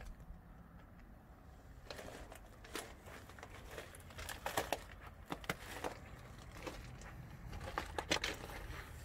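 Footsteps crunching on gravel, uneven and a few to the second, over a faint low rumble.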